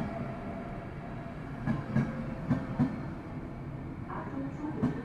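Passenger train running along the track: a steady rolling rumble with wheels clicking over rail joints in pairs of knocks, the clickety-clack of a bogie's two axles.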